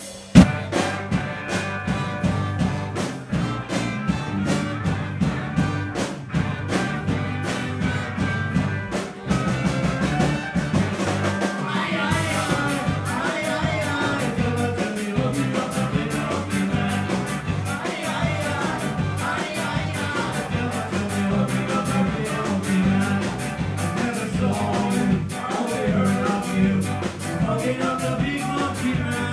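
Live ska band playing an upbeat song on electric guitar, bass and drums, coming in with a loud hit about half a second in.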